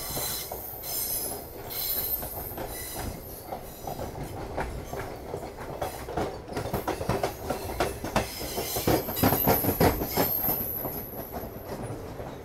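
Indian Railways passenger train running over rail joints and points, heard from an open coach door: wheels clattering in fast runs of clicks, densest and loudest about nine seconds in, with a high wheel squeal in that stretch.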